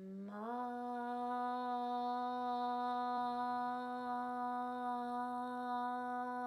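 A woman humming a long, steady 'ma' on one pitch as a meditation hum. She slides up into the note in the first half second and then holds it unbroken.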